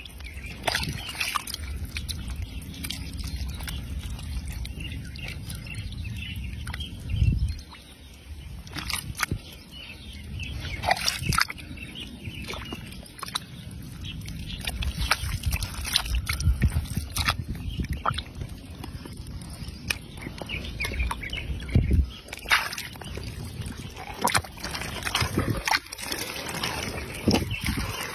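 A hand digging and squelching in wet mud and shallow muddy water while groping for an eel in its hole, with irregular wet slaps and splashes and a few louder knocks.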